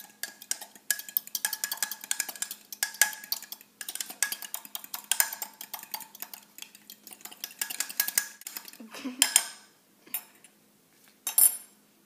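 A metal fork whisking egg, milk and melted butter in a ceramic mug: rapid clinking of the tines against the mug's sides for about nine seconds, then the stirring stops and a few separate knocks follow.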